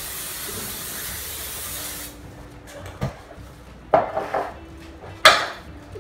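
Aerosol cooking spray hissing steadily onto a muffin pan for about two seconds, then stopping. A few knocks and clatters of kitchenware follow, the loudest near the end.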